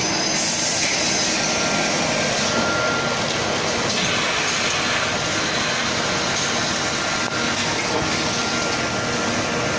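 Automatic facial-tissue bag packing machine running: a steady mechanical noise with a faint thin whine above it.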